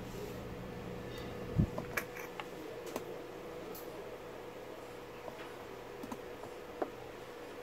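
Small handling clicks and taps on a workbench: a soft thump about a second and a half in, then a few scattered light clicks, over a faint steady hum.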